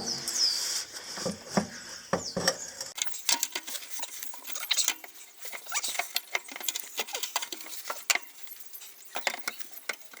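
Irregular metallic clinks, knocks and scrapes of a tool prying a car's exhaust joint apart.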